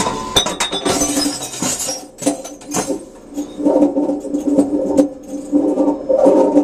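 Envipco CF1500G glass reverse vending machine taking in a glass bottle. Glass clinks and knocks in the first couple of seconds, then the machine's motor hums in short repeated spells.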